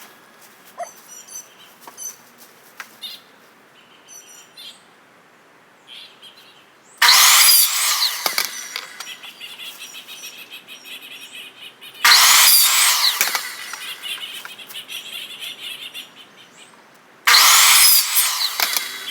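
Power saw making three short cuts about five seconds apart, each starting suddenly and winding down over a second or two. The cuts are pieces being cut to length for a pipe-and-T-joint rack.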